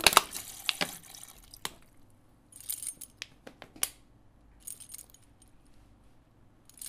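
Foley sounds in short bursts of high metallic jingling and rattling with sharp clicks. The loudest cluster comes right at the start, with further bursts about two and a half and four and a half seconds in and again at the very end.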